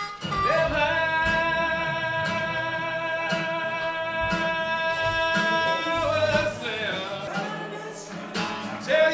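Music with a singer holding one long, steady note for about five seconds over a beat that falls about once a second; after that the melody moves on to shorter changing notes.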